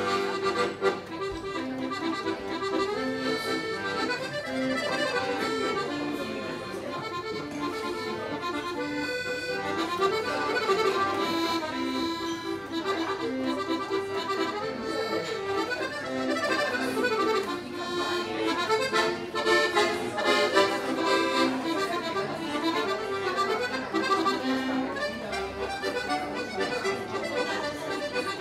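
Piano accordion playing a waltz: a melody in the right hand over short, evenly repeated bass-and-chord notes.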